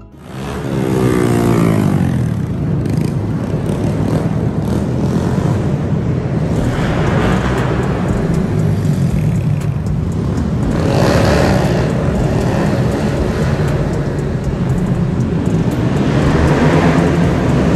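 Motorcycle engines revving hard, the pitch rising quickly in the first couple of seconds as a bike accelerates, then a loud continuous engine and exhaust din from several bikes, swelling now and then as they throttle up.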